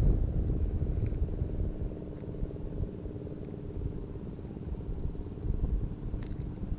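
A steady low mechanical hum under an uneven low rumble of handling and wind on a body-worn camera's microphone, with a short sharp click about six seconds in.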